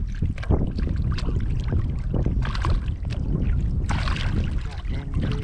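Wind buffeting the microphone, with irregular splashing as a hooked fish thrashes at the water's surface, the heaviest burst of splashing about four seconds in.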